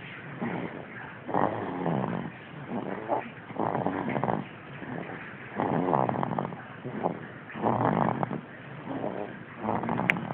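A baby snoring in sleep: a run of raspy snoring breaths, each about half a second long, coming every second or two.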